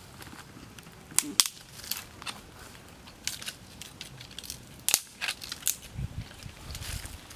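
Dead tree branch being broken by hand, its dry twigs snapping in a series of sharp cracks over a light rustle of wood and leaves, with a few low thumps near the end.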